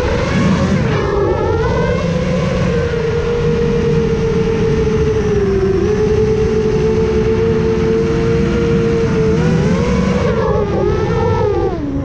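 Brushless motors and propellers of a custom FPV quadcopter whining, heard from the GoPro on board: the pitch holds fairly steady, then rises and falls with quick throttle changes near the end, over a low rumble.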